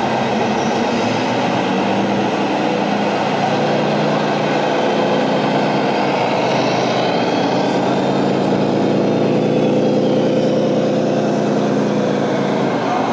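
RC model trucks' electronic diesel-engine sound modules running steadily, heard over the busy background noise of an exhibition hall.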